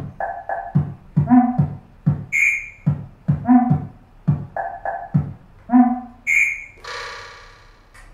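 Electronic drum samples triggered by touching conductive kitchen objects wired to a Touch Board. A quick, busy beat of low drum hits and short pitched tones, with two bright high pings, ends about seven seconds in on one longer ringing tone.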